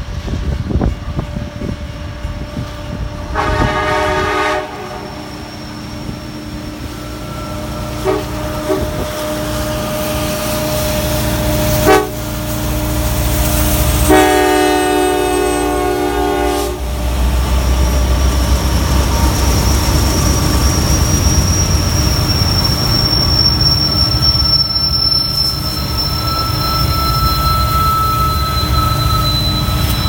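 Diesel freight locomotive air horn sounding two blasts, a short one about three seconds in and a longer one around fourteen seconds. Then the lead CN SD70M-2 locomotives rumble past, followed by freight cars with steel wheels squealing thinly against the rails.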